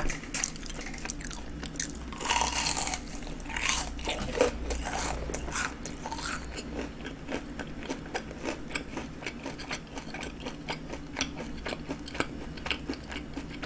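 Biting into and chewing a battered, deep-fried jumbo shrimp. There is a loud crackling crunch of bites about two to four seconds in, then a long run of small, crisp crunches as the fried coating is chewed.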